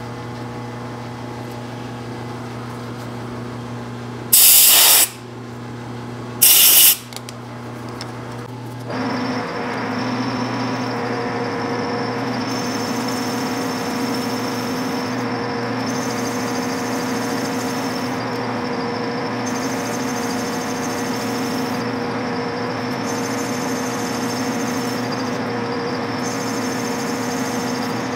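Two short, loud blasts of compressed air about four and six and a half seconds in, then a metal lathe starts about nine seconds in and runs steadily, turning an aluminium cap, with a higher hiss that comes and goes every couple of seconds.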